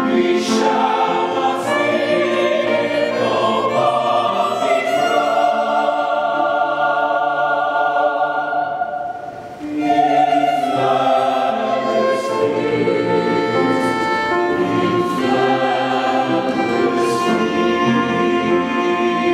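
Mixed choir singing in harmony, sustained held notes, with a brief break between phrases about nine seconds in before the singing resumes.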